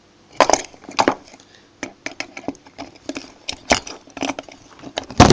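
Hand tools clicking, knocking and scraping against the parts of a residual current device as its current transformer is being pried off, with a sharp knock near the end.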